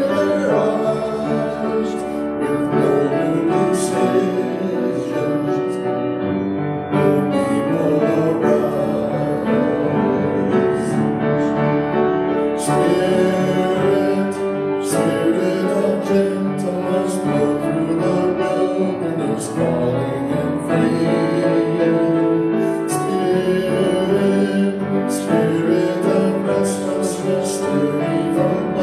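A hymn sung with keyboard accompaniment, moving from a verse into its refrain.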